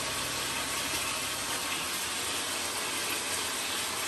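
A steady, even hiss with no distinct events. A low hum underneath fades out about halfway through.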